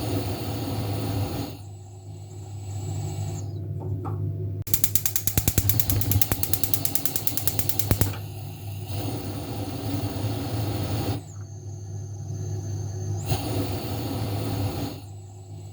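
Gas stove being switched on and off: a rapid run of igniter clicks lasting about three seconds, with hiss that starts and stops several times over a steady low hum.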